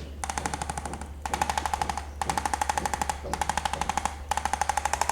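A motorised device tapping and buzzing rapidly, about a dozen taps a second, in five bursts of about a second each with short pauses between. A steady low hum runs underneath.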